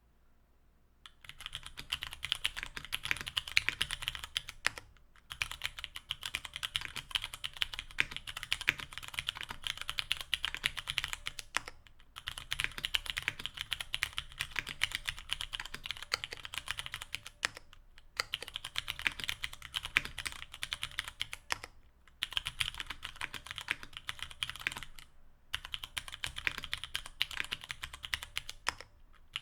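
Continuous typing on a mechanical keyboard fitted with stock Cherry MX Hyperglide Brown tactile switches (55 g), an aluminium plate, GMK keycaps and foam dampening: dense runs of keystroke clacks. The typing starts about a second in and pauses briefly several times.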